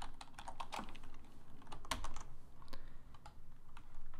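Computer keyboard typing: quick runs of keystrokes in the first second and again around two seconds in, then scattered single key presses.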